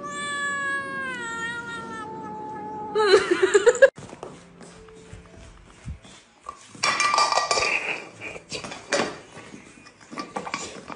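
A cat giving one long drawn-out meow of about three seconds that slowly falls in pitch, then a loud quick run of short wavering yowls. Later comes a noisier stretch with a few knocks.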